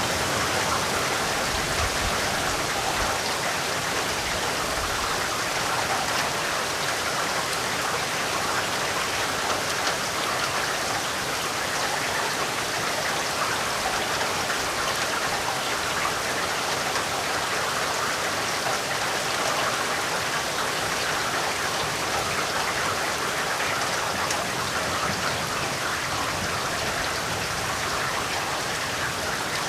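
Steady rain falling, an even hiss of many drops that keeps the same level throughout.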